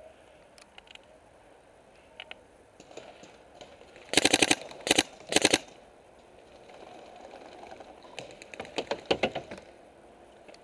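Paintball markers firing rapid strings of shots: three loud bursts in quick succession about four to five and a half seconds in, then a fainter volley around nine seconds.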